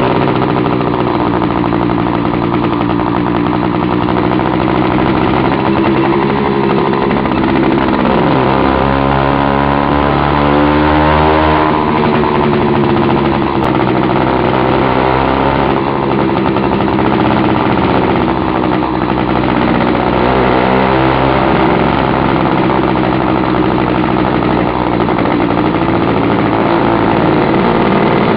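Chinese two-stroke bicycle kit engine running very loud with its muffler cap removed, pulling a motorized bicycle up a steep climb. The engine pitch drops about eight seconds in and climbs back over the next few seconds, with another dip and recovery near twenty seconds.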